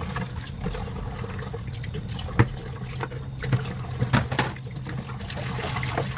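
Water trickling and splashing, with a few sharp knocks and clicks of handling, the loudest about two and a half seconds in and a cluster around four seconds.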